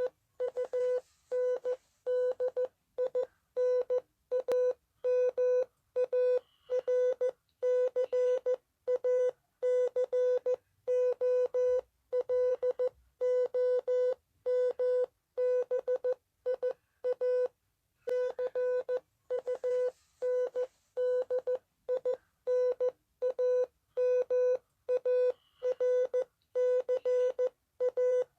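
Emergency alert alarm: a single mid-pitched tone with strong overtones, beeping on and off about twice a second. There is a break of about a second about 17 seconds in, after which the sequence starts again.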